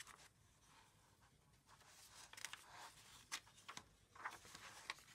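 Faint rustling and a few soft taps of paperback book pages being turned by hand, starting about two seconds in.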